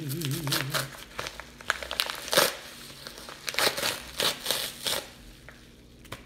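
Yellow paper padded bubble mailer crinkling and tearing as its tear strip is pulled open, in a run of irregular crackling rips, loudest about two and a half and four seconds in.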